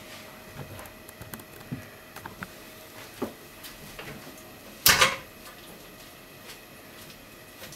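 Scattered light clicks and taps over a steady faint hiss, with a sharp double knock about five seconds in.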